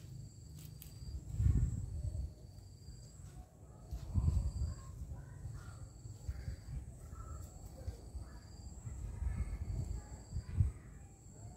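Outdoor ambience: scattered short bird calls over irregular low thumps and rumbles, the loudest about a second and a half in, about four seconds in and near the end, with a faint steady high-pitched whine throughout.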